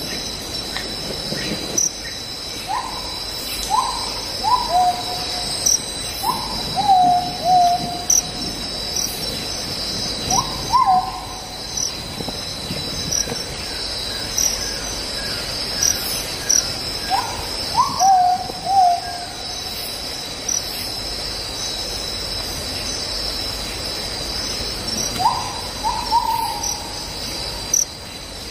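Recorded night-time nature ambience: a steady chorus of crickets, with a bird's hooting call coming in short groups of quick up-and-down notes every few seconds.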